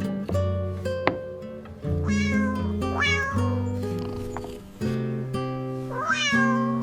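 A cat meowing about three times, short calls that rise and then fall in pitch, over gentle background music with held chords.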